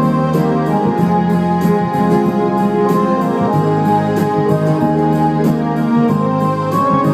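Electronic arranger keyboard being played: sustained organ-like chords and melody over a steady programmed drum beat.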